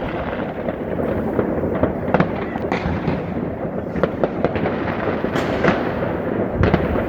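Fireworks and firecrackers going off all over a city: a dense, continuous crackle of overlapping pops and bangs, with several sharper, louder bangs through it.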